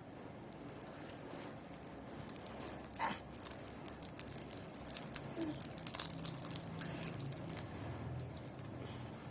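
A small cardboard Tomica toy-car box being opened by hand: packaging crinkling and rattling, with scattered light clicks and crackles.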